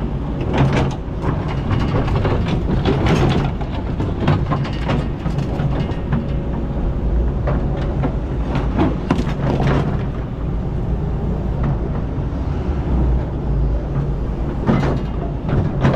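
Kobelco excavator's engine running steadily under working load while the bucket digs, with irregular scraping and knocking as the steel bucket strikes sand and rocks.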